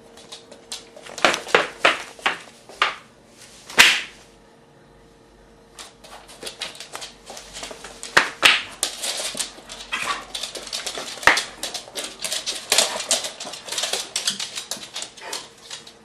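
Two restless border collies on a wooden floor: their claws click and tap irregularly, with a few short whimpers and yips mixed in and one louder yelp about four seconds in. A faint steady hum lies underneath.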